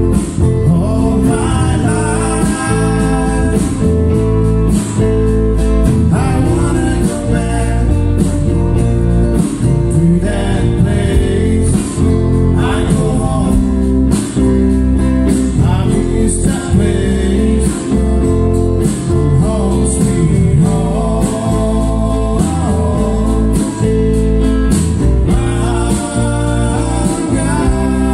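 Live band playing through a PA: strummed acoustic and electric guitars over drums, with a singer.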